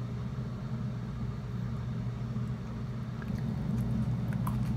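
Steady low hum, with a few faint clicks near the end.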